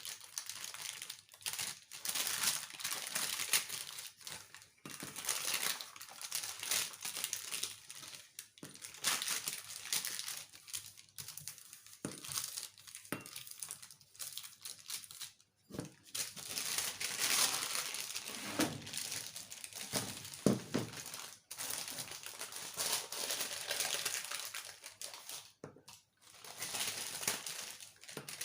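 Irregular crinkling and rustling, with a few small knocks, as homemade cough drops are handled and packed into a jar.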